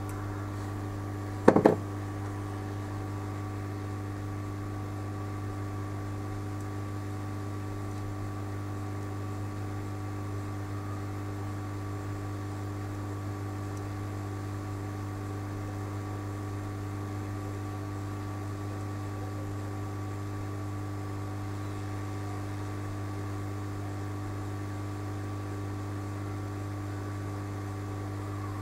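Steady electrical hum with several constant tones above it, and one short knock about a second and a half in.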